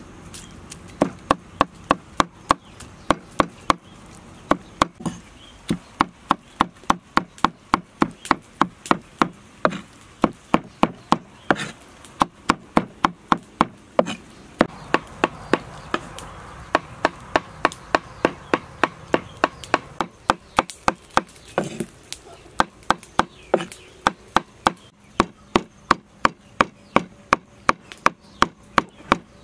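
Steel cleaver chopping rapidly on a thick wooden chopping block, mincing a soft egg-and-fish mixture, about three strokes a second, each stroke a sharp knock with a brief ring. The chopping stops briefly about two-thirds of the way through, then resumes.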